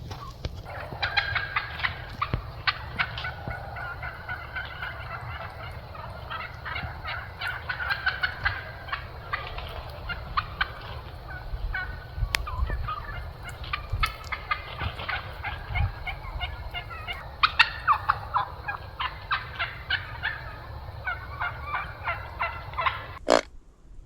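A large flock of wild turkeys calling from roosting trees, many short calls overlapping in a continuous chatter. It stops abruptly near the end.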